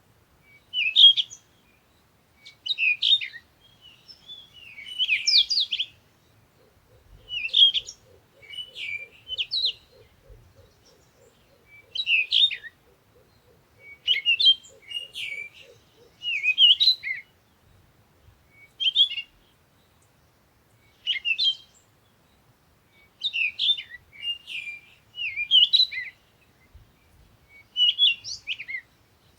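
Songbird chirping in short bursts of quick, high notes, one burst every second or two with brief silences between.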